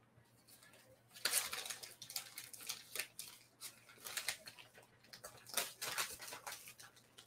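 Irregular clicks, taps and rustles from hands working at a desk, beginning about a second in. A faint steady low electrical hum runs underneath.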